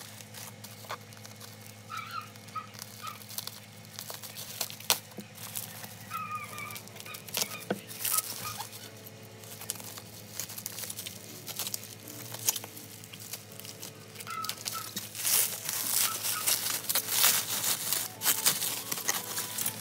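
Plastic bubble wrap crinkling and rustling as parcels are handled, cut with scissors and unwrapped, with scattered crackles and clicks. It is loudest in the last few seconds as the wrap is pulled off.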